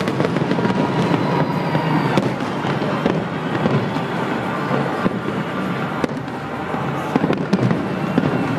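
Aerial fireworks shells bursting in a continuous run of bangs and crackles, with several sharper reports between about five and eight seconds in.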